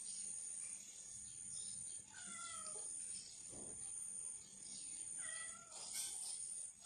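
Domestic cat meowing: two short meows with a bending pitch, about two seconds in and again about five seconds in. A steady high-pitched whine runs underneath.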